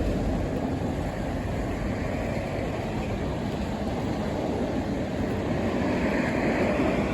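Steady rushing noise of a large waterfall's falling water, unbroken, swelling slightly near the end.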